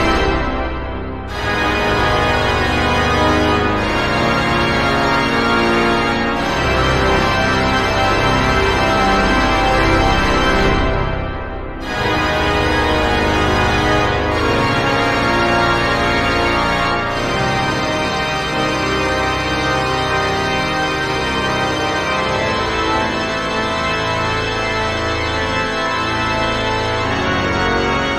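Pipe organ playing loud, full sustained chords, with two brief breaks between chords, about a second in and again near the middle.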